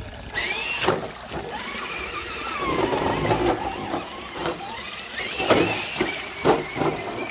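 RC crawler's electric motor and gears whining, the pitch rising and falling with the throttle, with several sharp knocks along the way.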